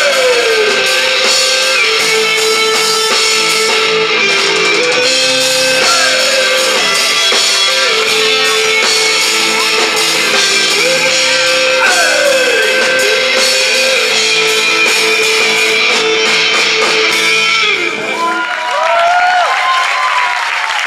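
Live band with electric guitar and drum kit playing the instrumental end of a song, with held notes and sliding guitar lines. The band stops about three-quarters of the way in, and crowd cheering and clapping take over.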